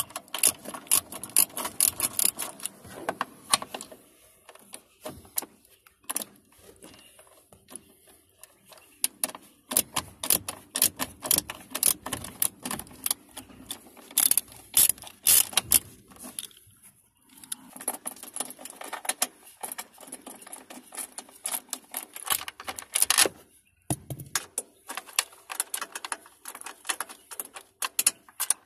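Metal hand tools clicking and clinking in rapid bursts while the bolts of a dashboard frame are worked loose, with short pauses between the bursts.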